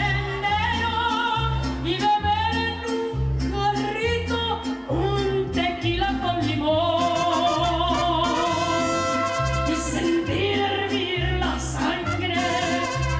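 Mariachi band playing live with a woman singing lead: a wavering vibrato voice over strummed guitars and a rhythmic bass line.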